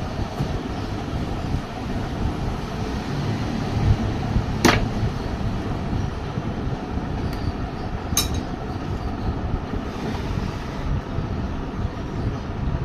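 Steady low rumbling background noise, with two short sharp clicks about five and eight seconds in.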